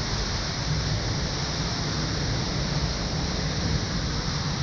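A mountain waterfall pouring down into the gorge, heard up close: a steady, unbroken rush of falling water.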